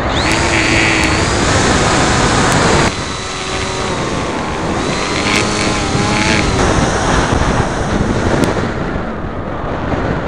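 Electric motor and propeller of a foam FPV model plane whining, the pitch rising and falling with the throttle, over heavy wind rumble on the microphone. The sound changes abruptly about three seconds in.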